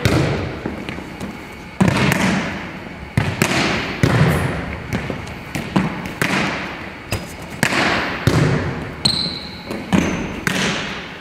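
Volleyball being struck again and again in a passing drill, a sharp smack about every one to one and a half seconds as the ball is fed and forearm-passed, each hit ringing out in the echo of a large, empty gymnasium. A brief high squeak sounds about nine seconds in.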